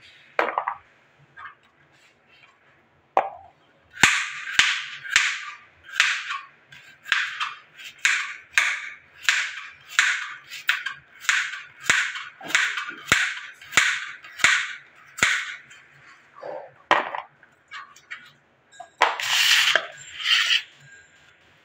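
Knife slicing a raw carrot on a plastic cutting board: a steady run of crisp cuts, just under two a second. Near the end comes a short scraping clatter.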